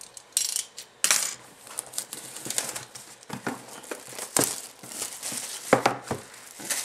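Plastic wrap on a cardboard box being slit with a blade and pulled off, crinkling and crackling in irregular bursts with a few sharp snaps.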